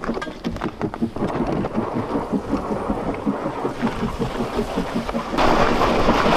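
Boots crunching on thin, snow-dusted ice at a walking pace while a plastic ice-fishing sled scrapes and hisses along the ice behind. About five seconds in the hiss turns suddenly louder and brighter.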